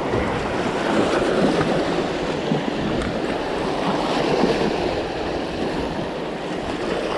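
Small waves washing and splashing over the boulders of a rock breakwater in a steady rush, with wind buffeting the microphone.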